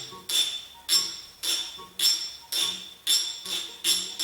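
Background music with a steady percussive beat: a bright jingling hit about twice a second over a quiet tune.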